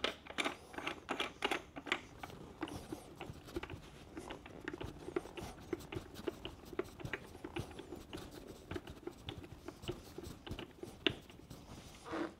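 Light, irregular metallic clicks and taps of hand tools tightening the bolts of motorcycle front axle sliders, busiest in the first couple of seconds.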